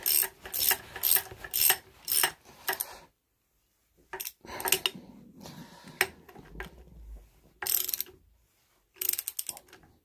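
Ratchet wrench clicking as a nut is worked by hand: a quick run of clicks for about three seconds, a short pause, then scattered clicks and another run near the end.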